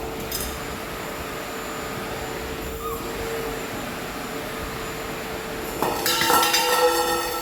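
Vacuum cleaner running with a steady hum. About six seconds in it gets louder for a second or so, with a higher whine over it.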